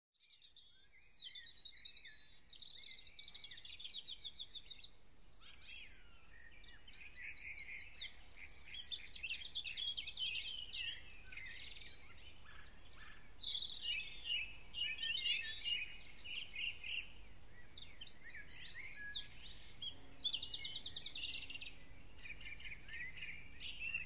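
Songbirds singing and chirping: repeated rapid trills and twittering from several birds overlapping. Soft sustained music tones come in near the end.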